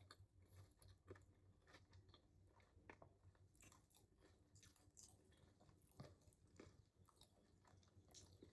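Faint close-miked chewing of a soft, saucy Sloppy Joe sandwich on a brioche bun: irregular wet mouth clicks and smacks.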